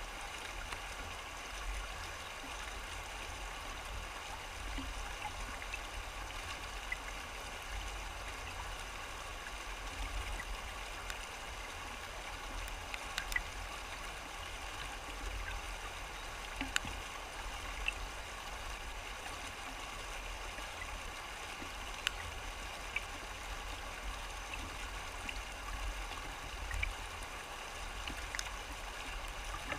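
Shallow river rapids rushing over rocks: a steady, even noise of running water, with a few short sharper splashes now and then.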